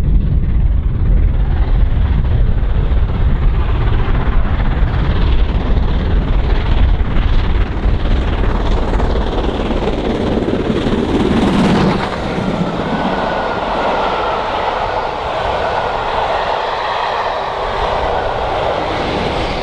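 Steam-hauled train passing at speed behind a BR Standard Class 7 'Britannia' Pacific, with a Class 47 diesel on the rear. A heavy low rumble builds as the locomotive nears and peaks as it passes, about twelve seconds in. Then the coaches roll by with a steadier, higher rushing sound.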